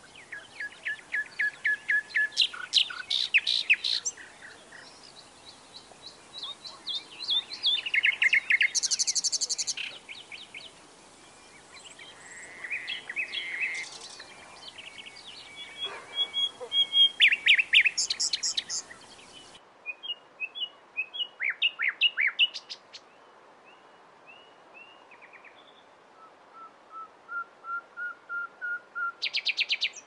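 A songbird, which the uploader identifies as a nightingale, singing a string of varied phrases, each a rapid run of repeated notes or trills with short pauses between them. The last phrase is a run of notes that grows steadily louder.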